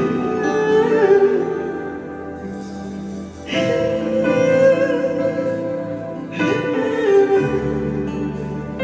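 A live band plays a slow ballad without lyrics. Held chords change twice, each change with an accent.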